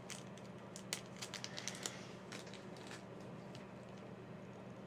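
Faint, light clicks and ticks of small model-kit parts being handled as a small screw is fitted, mostly in the first two seconds, over a faint steady hum.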